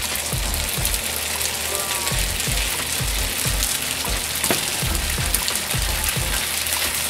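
Curry-coated spaghetti sizzling as it fries in a hot iron frying pan, stirred now and then, while it is left to brown.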